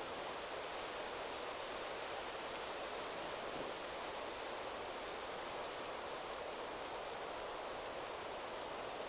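Wind rustling steadily through forest trees, with a few faint high bird chirps and one louder, very short bird chirp about seven seconds in.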